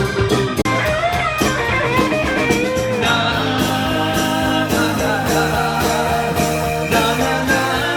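Live rock band playing an instrumental passage: a steady drum beat under a lead line that bends up and down in pitch, with full band chords after about three seconds.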